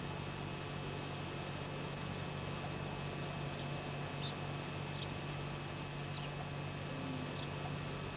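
Steady hiss with a low hum underneath, the noise of an old video tape recording, and a few faint, short high chirps of distant birds scattered through it.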